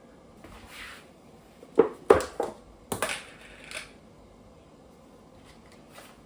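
Kitchenware clattering: a quick run of sharp knocks and clinks against a cooking pot, clustered between about two and four seconds in.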